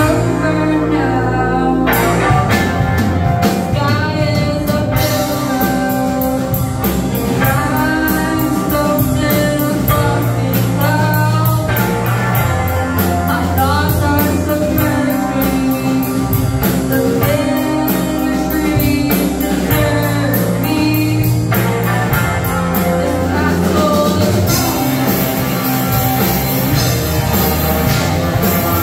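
Live rock band playing a song: singing over electric guitar, bass guitar, keyboard and drum kit. The drums come in about two seconds in, and the cymbals grow louder near the end.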